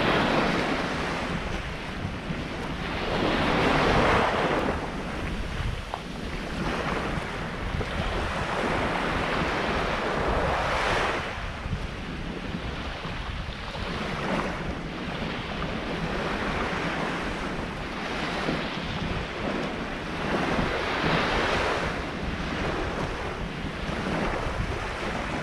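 Small waves washing onto a sandy beach, the surf rising and falling every few seconds, with wind rumbling on the microphone.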